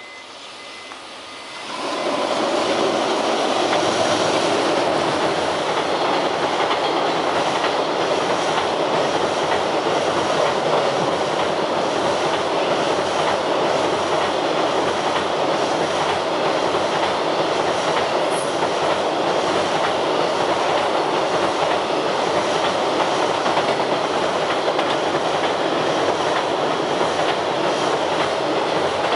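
EF210 electric locomotive hauling a container freight train past at close range: the sound rises sharply about two seconds in as the locomotive reaches, then a steady loud rumble of wagon wheels running on the rails as the long string of container flatcars goes by.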